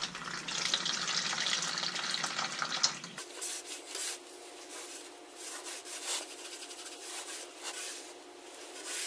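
Old fluid pouring steadily out of a Jeep Wrangler's transfer case drain hole for about three seconds, then stopping abruptly; after that, a rag faintly rubbing over the transfer case housing.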